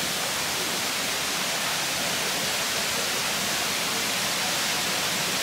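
Rushing water of a rocky stream pouring over boulders: a steady, even rush.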